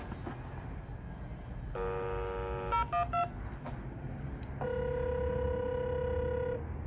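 Door-access intercom call box placing a call after its button is pressed: a steady tone about two seconds in, three quick dialing beeps, then a two-second ringing tone while the call waits to be answered.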